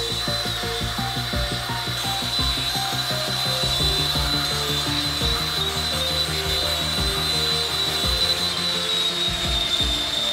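Cordless drill running steadily while boring into the end of an aluminium extrusion profile, its motor giving a constant high whine that sags slightly in pitch near the end.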